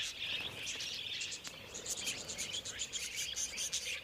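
Flock of wild budgerigars chattering, a dense stream of rapid, high chirps and warbles.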